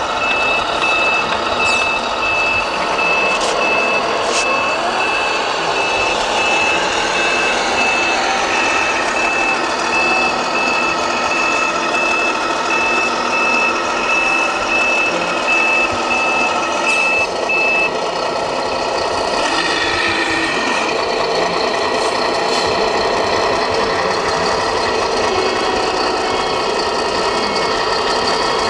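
Electronic reversing beeper from a radio-controlled scale truck's sound module: a steady run of evenly spaced beeps that stops about two-thirds of the way through, with a fainter, lower beep returning near the end. Underneath runs the module's simulated truck diesel engine.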